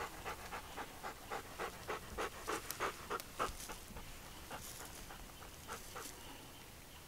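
Bernese Mountain Dog panting quickly, about three to four pants a second, thinning out to a few scattered pants in the second half.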